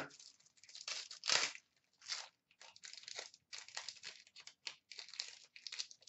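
Wrapper of a hockey card pack being torn open and crinkled in the hands: an irregular run of crackles and rips, the loudest about a second in.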